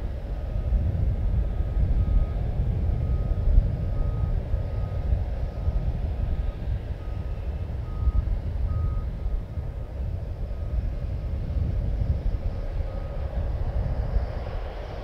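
Reversing alarm of an airport ground-service vehicle beeping about twice a second, one short high tone, over a steady low rumble; the beeping stops about two seconds before the end.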